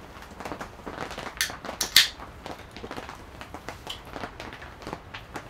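Metal cans being handled and set down on a plastic bin: a few sharp clicks and knocks, the two loudest about one and a half and two seconds in, with softer taps after.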